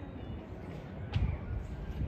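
Busy outdoor street ambience with a low rumble and faint distant voices, and a single sharp click about a second in.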